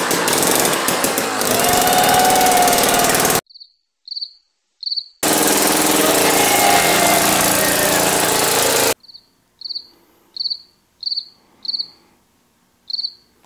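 Jiffy gas-powered ice auger engine running loudly at high revs, cut off abruptly twice. Each cut drops into dead silence with a cricket chirping about once every half-second to second: three chirps after the first cut, about eight near the end.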